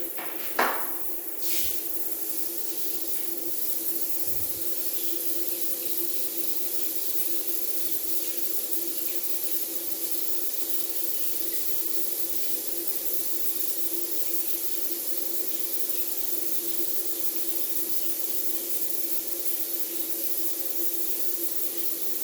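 Shower head spraying water steadily, an even rushing hiss. About half a second in there is one sharp, loud knock or splash, the loudest moment, followed by a smaller change in the spray about a second later.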